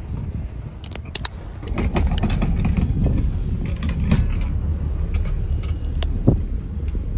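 Motorboat underway: a steady low engine and hull rumble that grows louder about two seconds in, with light clicking and rattling throughout and a single knock near the end.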